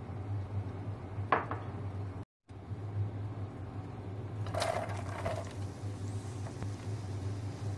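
Steady low hum, with a single sharp click about a second in and a short clatter about halfway through as chopped onions are tipped into a nonstick frying pan of oil.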